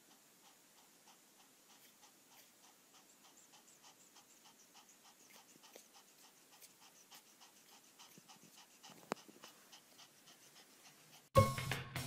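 Faint, quick, even breaths or tiny squeaks from a sleeping newborn puppy, about three or four a second, with one sharper click about nine seconds in. Music starts near the end.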